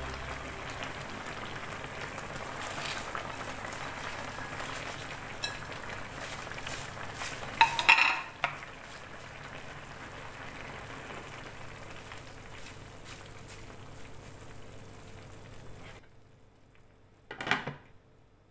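Vegetable broth simmering hard in a wok, a steady bubbling hiss, with a short burst of clatter and rustle about eight seconds in as a pile of kangkong (water spinach) leaves goes in. The bubbling drops away near the end, and a single clank comes as the glass lid is set on the wok.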